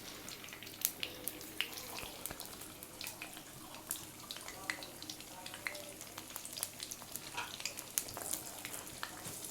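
Marinated chicken pieces sizzling as they fry in hot oil in a pan, with frequent irregular crackling pops.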